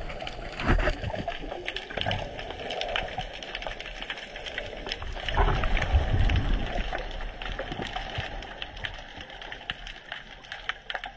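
Underwater sound of a freediver descending through a kelp forest: muffled water rush with low surges from the kicks, loudest about halfway through, over a constant scatter of crackling clicks.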